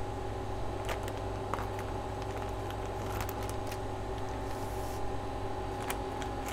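Sparse crinkles and crackles of a clear plastic mushroom grow bag being handled with gloved hands, over a steady machine hum.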